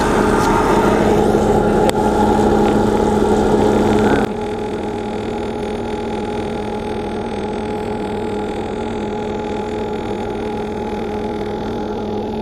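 A motor running steadily, a constant hum with overtones; it drops in level about four seconds in.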